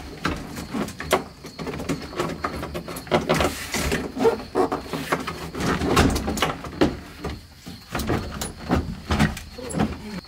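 Irregular knocks, taps and scraping of a 1997 Subaru Impreza's plastic dashboard being pushed and shifted to seat it in place.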